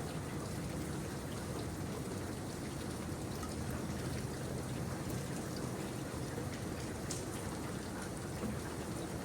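Steady rain falling, a continuous even hiss with scattered small drop ticks and a trickling, pouring quality.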